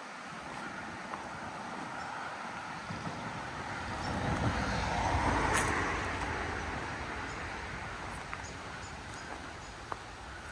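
A road vehicle driving past, its tyre and engine noise swelling to a peak about halfway through and then fading away.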